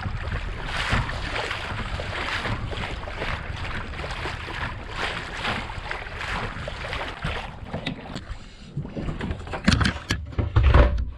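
Wind on the microphone and water washing past the hull of a pedal-drive fishing kayak under way. About ten seconds in come a few loud knocks as the camera is handled.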